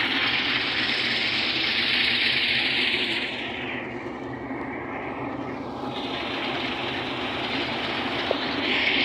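Combine harvester running in a field: a steady engine and machinery noise that fades for a couple of seconds around the middle, then rises again.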